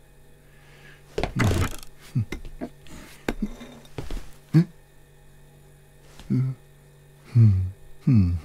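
Cartoon foley of washing up at a kitchen sink: a short splash or rush about a second in and clinks of crockery. Several short wordless voice sounds with falling pitch come in the second half.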